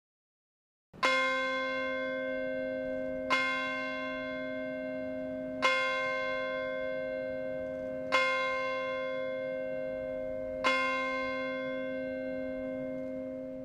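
A single church bell tolled slowly: five strokes about two and a half seconds apart, the first about a second in, each left to ring on into the next.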